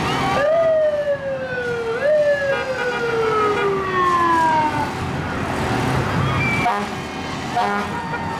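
A fire engine's old siren with an odd sound gives two long downward sweeps, each snapping up in pitch and then sliding slowly down, the first about half a second in and the second about two seconds in; it stops about five seconds in. A few short steady tones follow near the end.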